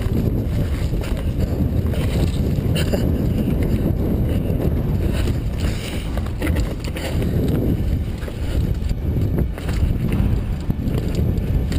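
Mountain bike rolling down a rocky trail, heard from a handlebar-mounted camera: a steady low rumble of wind on the microphone and tyres on stone, broken by scattered clicks and rattles as the bike goes over rocks.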